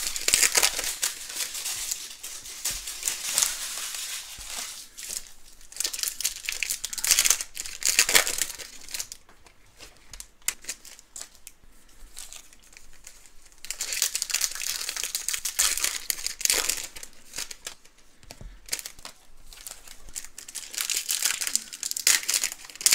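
Trading-card pack wrappers crinkling and tearing as football card packs are ripped open one after another, in bursts with quieter gaps between them.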